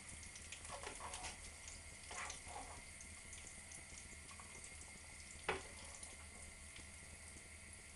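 Faint sizzling from a hot frying pan, with soft clinks of a spoon as browned meatballs are lifted out into a ceramic dish, and one sharper knock about five and a half seconds in.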